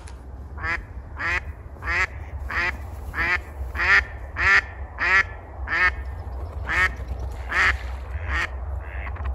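Live hen decoy duck quacking a long series of about a dozen calls, roughly one and a half a second, spacing out a little near the end. The calling is meant to lure a drake in. A steady low rumble runs underneath.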